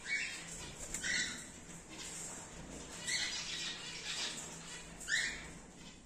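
Cockatiels calling: four short chirps that rise in pitch, spaced a second or two apart, the last one the loudest.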